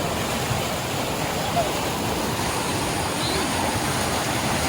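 Fast-flowing river water rushing over rocks, a steady unbroken noise.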